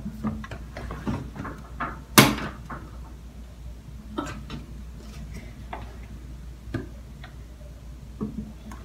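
Scattered clicks and knocks of hands handling a wall-mounted plastic toothpaste dispenser as a toothpaste tube is fitted into it, with one sharp, louder knock about two seconds in.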